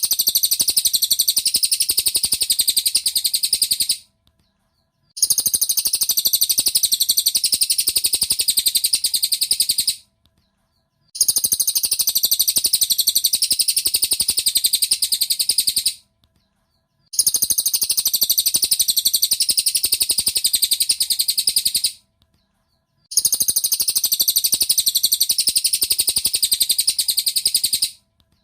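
Cililin song recording played as a masteran loop: a fast, high-pitched, unbroken chattering trill. It comes in stretches of about five seconds, each cut off sharply by about a second of silence, and repeats over and over.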